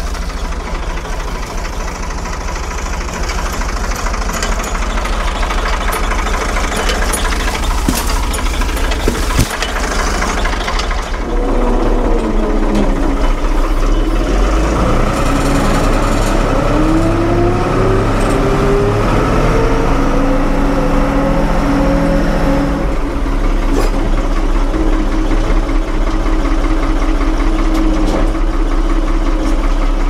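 Ford 550 backhoe's diesel engine running. About eleven seconds in it gets louder, with rising and falling tones over the steady rumble as the machine is worked.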